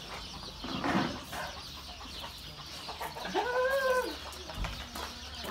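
A chicken calling, with one drawn-out call that rises and falls about three seconds in.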